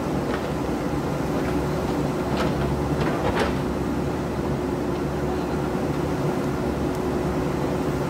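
JCB backhoe loader's diesel engine running steadily under load as the backhoe digs, with a steady tone held throughout. A few sharp knocks of the bucket against rock come between about two and three and a half seconds in.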